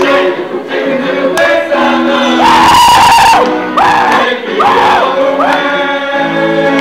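Live rock band music with held chords under a group of voices singing loudly in four rising-and-falling swoops through the second half.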